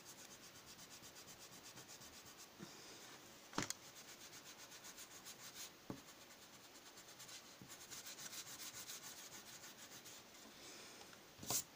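A Koh-i-Noor eraser rubs a pencil line off drawing paper in fast, even back-and-forth strokes, a faint dry scrubbing. There is one sharper tap about three and a half seconds in, and the strokes get louder near the end.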